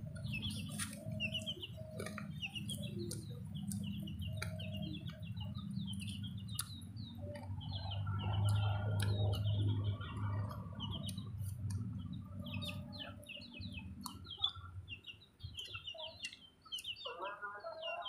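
Chickens clucking with repeated high chirping, alongside scattered light clicks and mouth sounds of someone eating.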